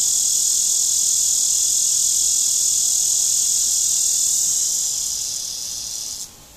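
Steady, high-pitched insect chorus, loud throughout, fading over the last second and a half and then cutting off suddenly just before the end.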